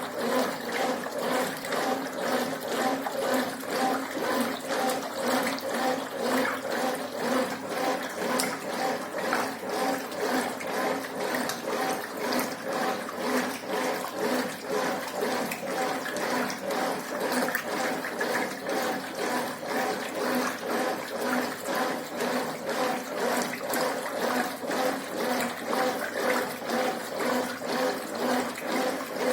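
Brastemp Ative 11 kg top-loading washing machine agitating with its Dual Action agitator: water swishing back and forth in a regular rhythm, about one and a half surges a second, over a steady motor hum.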